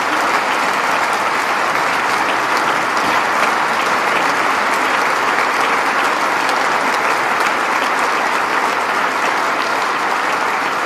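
Large audience applauding steadily, a dense, even clapping that holds at one level throughout.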